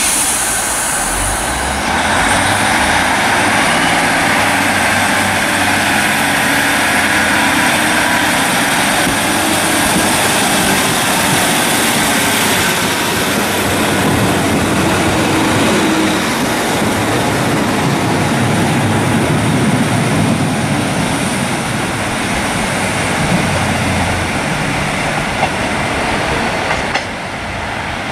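Class 150 Sprinter diesel multiple unit pulling away from a station platform and running past close by. Its underfloor diesel engines rev up in steps while the wheels rumble on the rails, until the sound cuts off abruptly near the end.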